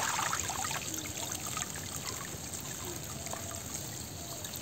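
Water trickling and dripping out of a woven bamboo fish trap just lifted from shallow water, with scattered small drips and splashes, slowly fading.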